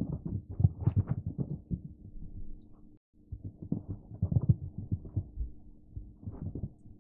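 Irregular dull thumps of a cat's paws landing and scrabbling on a carpeted floor as it pounces after a light toy, over a faint steady hum. The sound cuts out for a moment about three seconds in.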